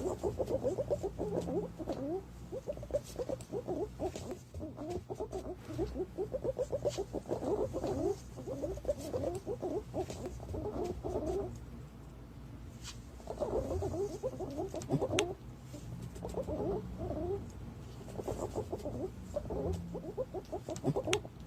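Green pigeon calls played as a hunting lure: bouts of quick, wavering notes that rise and fall, each bout several seconds long with short gaps between, over a steady low hum.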